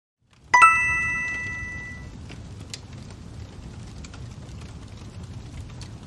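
A single bell-like chime strikes about half a second in and rings out over a second or two. Under it and after it runs recorded fire crackling: a steady low rumble with scattered small pops.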